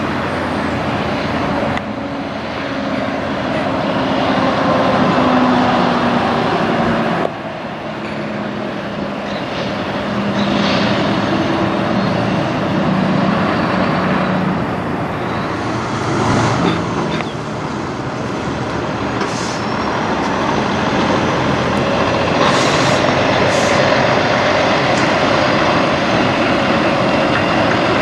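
Heavy semi-truck diesel engines running as the trucks pull loaded lowboy trailers past, with the engine pitch rising and falling. A few short, high hisses come later on.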